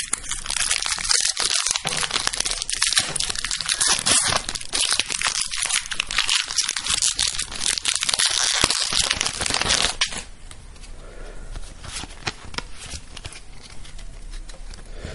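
Foil booster-pack wrapper crinkling and tearing as it is opened by hand: a dense, crackly rustle. About ten seconds in it gives way to quieter handling with a few light clicks.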